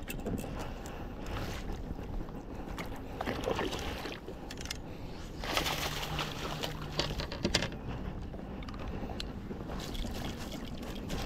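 Water splashing in bursts as a hooked largemouth bass is played to the side of the boat and scooped into a landing net with a clump of weed, the loudest splashing in the middle.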